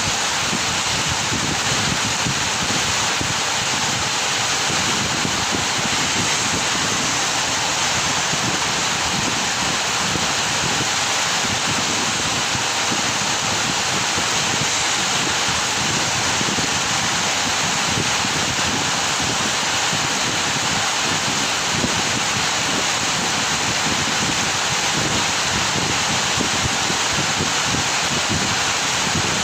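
Steady rain falling: an even hiss that holds at the same level throughout.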